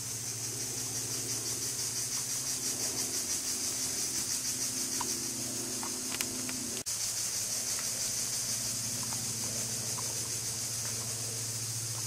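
Steady high-pitched insect chorus with a fast pulse, over a low steady hum; the sound cuts out for an instant about seven seconds in.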